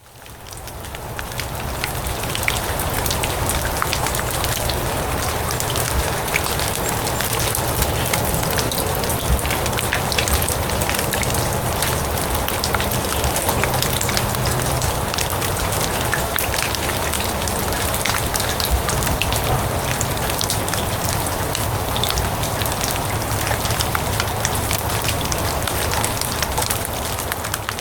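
Steady rain falling on grass: a dense hiss made of countless fine drop taps, fading in over the first two seconds and then holding even.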